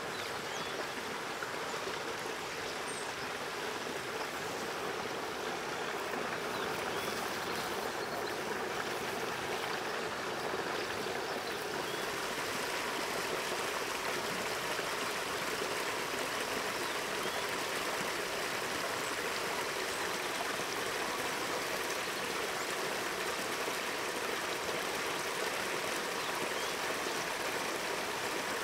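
Steady rushing of running water, like a stream, slightly louder from about twelve seconds in.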